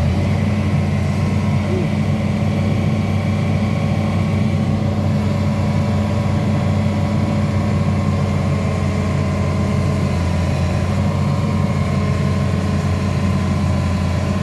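Hitachi Zaxis 210 excavator's diesel engine running at a steady speed, a constant low drone.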